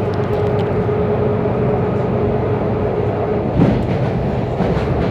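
Electric commuter train running, heard from inside the carriage: a steady rolling rumble with a steady whine that drops out about three and a half seconds in, just as a single loud clack sounds.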